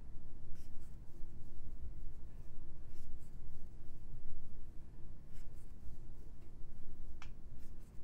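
Soft rubbing and scratching of yarn being drawn over a crochet hook as half double crochet stitches are worked, with a few faint clicks spread through.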